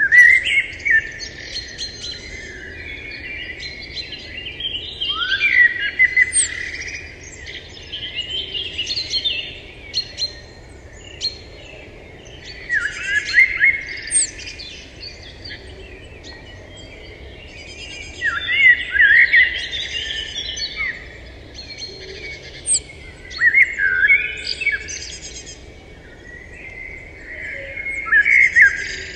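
Wild birds chirping and singing in bursts of rapid, high chirps and trills every few seconds, over a faint steady background hum.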